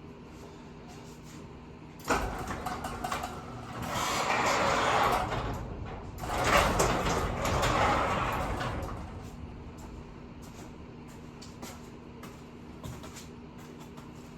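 Garage door being opened: a sudden start about two seconds in, then a noisy rumbling run in two surges that dies away after about seven seconds. A steady low hum sits underneath.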